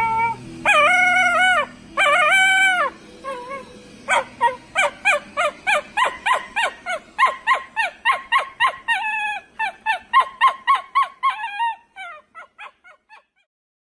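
Shiba Inu dog giving two long, high-pitched yowling barks, then a fast run of short high yaps, about three a second, that thins out near the end. It is barking at a robot vacuum cleaner coming toward it.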